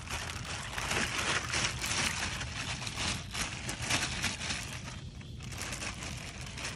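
Plastic bag crinkling and rustling with water splashing as a bagful of crabs and shrimp is tipped out into shallow water, making a dense crackle.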